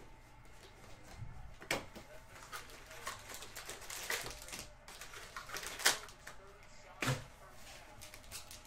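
2018-19 Chronicles basketball card packs being opened and the cards handled: scattered sharp clicks and taps of wrappers and card stock, the loudest about six seconds in.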